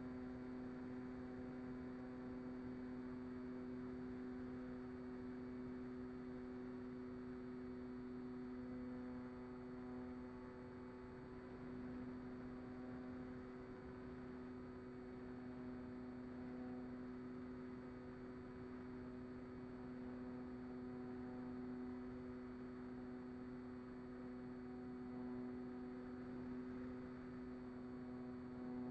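Mini Talon's brushless electric motor and pusher propeller at steady cruise throttle, heard from the onboard camera as a faint, steady hum with several held tones.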